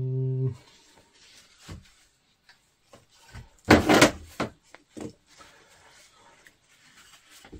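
Handling noises: scattered light knocks and taps, with one louder clatter about four seconds in, as parts are moved about and set down.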